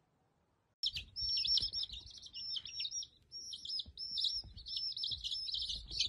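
Baby chicken chicks peeping: a dense, unbroken stream of rapid high chirps that starts about a second in, over a faint low rumble.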